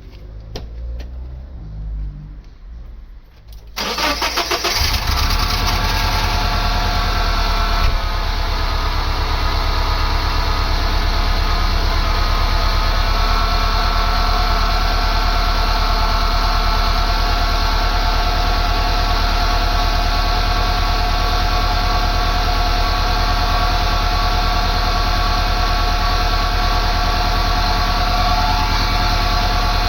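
A 1999 Subaru Forester S/TB's turbocharged flat-four is cranked and catches about four seconds in, after a few low bumps, then settles into a steady idle on fresh oil just after an overdue oil change.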